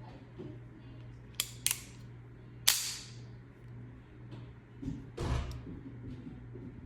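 Pietta 1851 Navy black-powder revolver's action working: two quick metallic clicks, then a louder, sharper snap about a second later, like the hammer being cocked and then falling. A duller thump follows a couple of seconds later.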